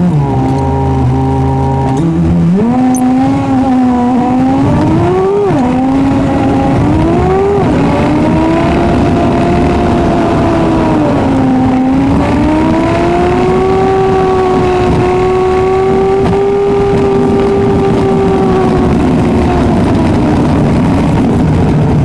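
Car engine driving in traffic. After a steady opening tone, the pitch climbs and drops back several times as the car accelerates through the gears, then settles into a steady drone that wavers slowly and sinks near the end as the car slows.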